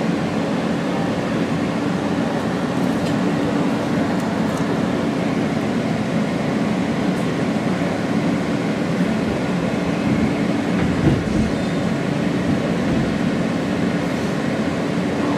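R160 subway train running along the line: a steady rumble of wheels on rail with a constant low hum, and one brief low thump about eleven seconds in.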